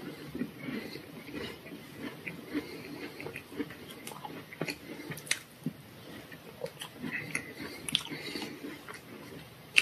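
Close-miked eating: wet chewing of a mouthful of dessert, then scattered sharp clicks and scrapes of a plastic fork against a fruit tart.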